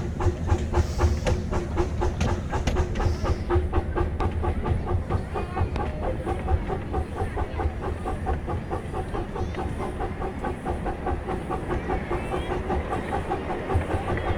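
Miniature 15-inch-gauge steam train under way behind steam locomotive #7 'Oak', a steady rhythm of beats at about four a second as it runs along the track.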